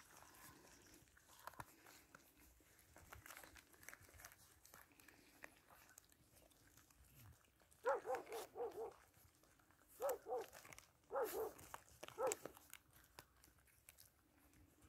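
Puppies yelping and whining in several short clusters of high, wavering cries, starting about halfway through, over faint scuffling.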